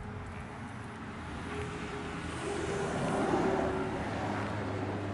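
Motor-vehicle noise from road traffic: a steady low hum, with a passing vehicle swelling to its loudest about three seconds in and then fading.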